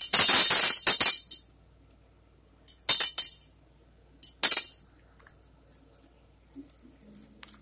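Small rocks clattering into a glass jar: a long rattling pour at the start, two shorter bursts of clinking a couple of seconds apart, then a few scattered clicks near the end.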